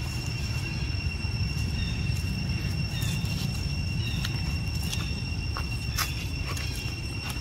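Steady insect drone holding one high tone, over a low rumbling background noise, with a few faint short chirps and clicks partway through.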